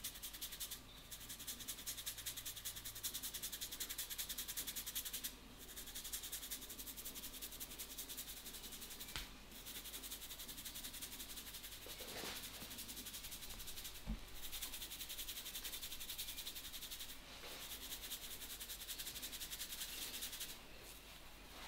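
Hands rubbing fast over hair and scalp in a head massage, a dense rustling in runs of a few seconds broken by short pauses, with a couple of soft knocks.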